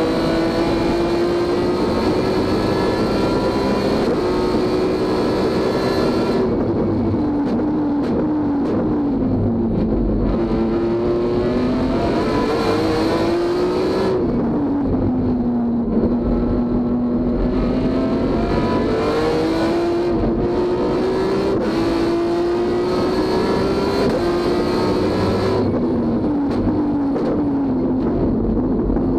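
BMW S54 straight-six in an E36 race car, heard from inside the cockpit, running at high revs under load. Three times the throttle is lifted and the revs fall away in steps for a corner, then climb back up through the gears of the sequential gearbox.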